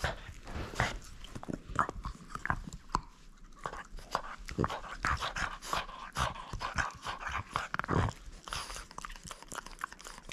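French bulldog chewing a red spiked chew-toy ring: rapid, irregular crunching and clicking of teeth on the toy.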